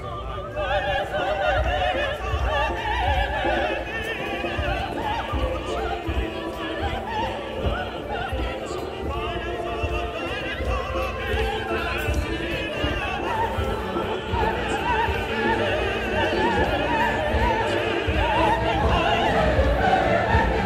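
Music with a singer holding long, wavering notes in an operatic style, with a low rumble underneath.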